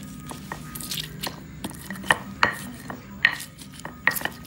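Stone pestle knocking down on a flat grinding stone, crushing fresh red chilies for sambal: irregular sharp knocks, the loudest about two seconds in and again around three and four seconds in.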